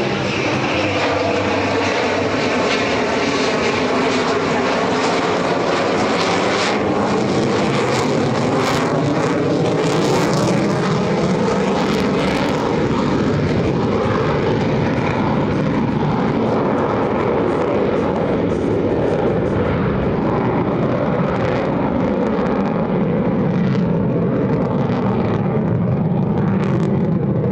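F-35C Lightning II's Pratt & Whitney F135 jet engine during a slow, high-angle-of-attack pass: a loud, continuous jet rumble whose pitch slides down as the jet goes by, with sharp crackles about eight to thirteen seconds in.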